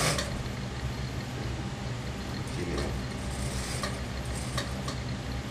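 Industrial sewing machine running as a seam is stitched: a steady motor hum with a few light clicks now and then.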